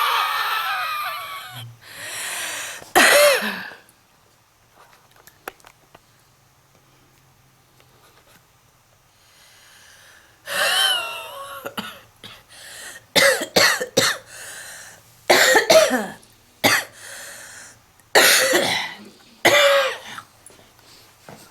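A smoker's heavy cough: a long wheezy coughing fit with a strained, pitched edge, then several seconds of quiet with a faint breath. About halfway through, a second run of a dozen or so sharp, hacking coughs follows.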